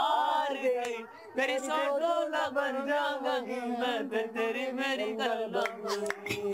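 Unaccompanied singing, voices drawing out long, wavering held notes of a song with a short pause for breath about a second in.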